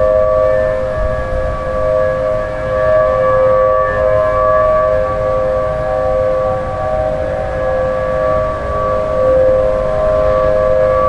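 Thunderbolt 1000T tornado siren sounding a steady alert tone: a two-note chord held at one pitch, swelling and fading slightly in loudness rather than wailing up and down.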